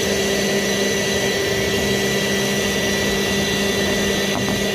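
A vacuum running steadily with a hum and a whine as it sucks machining chips out of a CNC machine's bed. There are a couple of faint clicks near the end.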